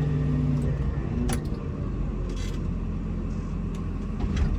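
Komatsu WA270 wheel loader running under load while plowing snow: a steady low engine and drivetrain rumble with the plow scraping along, and a sharp knock about a second in and another near the end.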